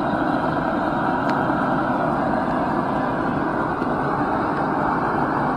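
Backyard forge running with a steady rushing roar, even in level throughout, that drops out for an instant right at the end.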